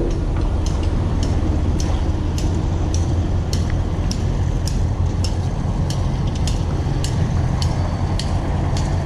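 Steady low engine rumble, with light sharp clicks about twice a second over it.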